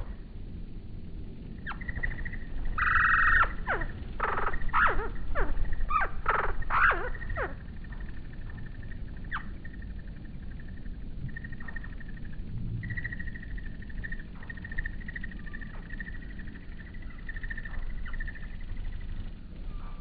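Outdoor animal calls: a run of about seven loud, sharply falling cries over several seconds, then a steady, fluttering high-pitched chirring that comes and goes.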